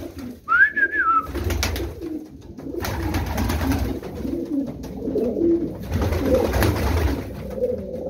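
Racing pigeons cooing in a loft, with low wavering coos overlapping throughout. A single short, high whistled note rises and falls about half a second in.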